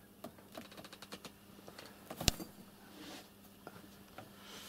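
A cat moving about inside a wooden cage with wire bars, giving faint scattered clicks and scrapes, with one sharper click a little over two seconds in.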